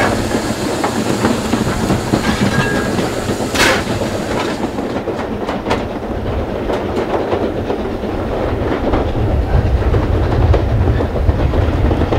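Heritage steam train carriage running along the track: a steady rumble with wheels clicking over the rail joints. A brief hiss about three and a half seconds in.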